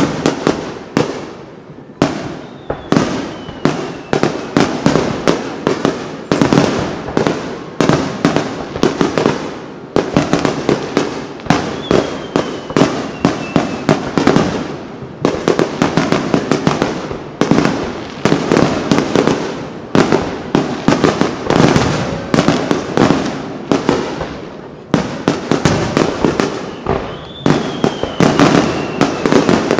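Aerial firework shells bursting in a fast, dense barrage, several loud bangs a second overlapping with crackle, with a few brief lulls. Now and then a faint falling whistle sounds through the bangs.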